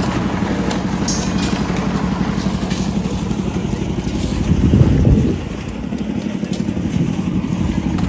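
Engine of a drum concrete mixer running steadily. It swells louder about five seconds in, then drops back a little and carries on.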